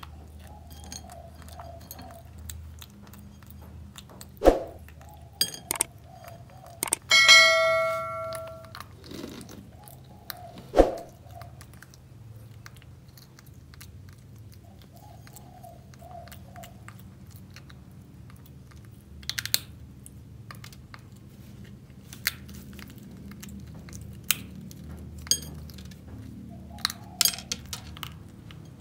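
Baby macaque chewing and crunching peanut candy, with many small clicks and a few sharp knocks. About seven seconds in, a short ringing, bell-like tone sounds and fades over a second or so.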